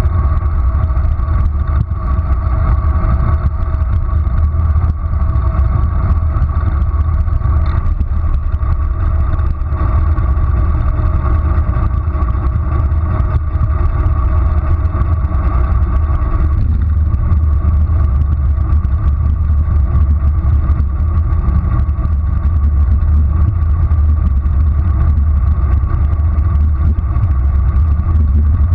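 Wind rushing over a GoPro's microphone on a bicycle descending a road at speed: a loud, steady, deep rumble with road noise, and a faint steady hum that drops away about halfway through.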